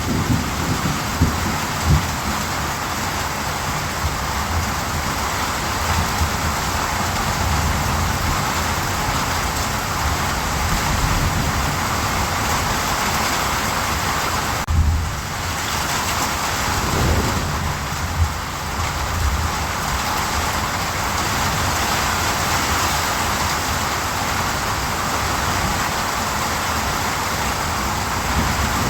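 Steady, heavy rainfall with a low rumble of thunder underneath. The sound dips briefly about halfway through.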